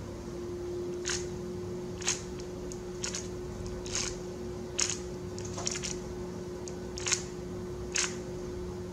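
Stickerless plastic 3x3 speed cube being turned one layer at a time, each move giving a short sharp click, about one a second, over a faint steady hum.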